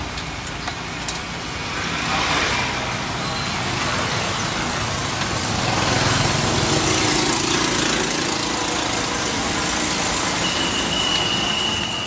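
Road traffic passing close by, a steady wash of engine and tyre noise that swells twice as vehicles go past. A thin, steady high tone sounds for a second or so near the end.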